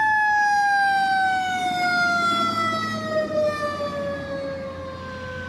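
Emergency vehicle siren sounding one long, loud tone that slides slowly and steadily down in pitch, over a low steady rumble of engines.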